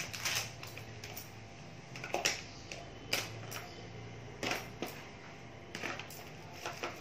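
Small makeup items being picked through by hand: scattered light clicks and clatter of cosmetic cases knocking together, one or two a second.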